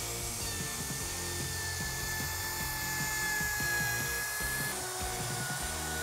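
Router running steadily as it is pushed across a slab on a flattening jig, surfacing the wood: a high, steady whine with hiss. The whine steps down slightly in pitch about three-quarters of the way through.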